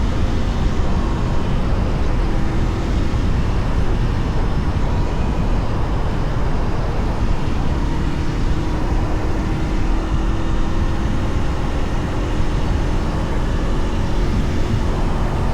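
Honda CL500 motorcycle's parallel-twin engine running on its stock exhaust, a steady low sound with a faint tone that rises slightly about halfway through.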